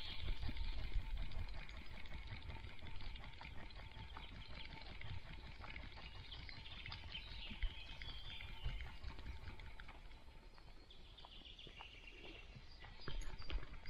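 Birds chirping faintly in woodland over a steady low rumble and scattered light crackles from a dog walking with a body-mounted camera.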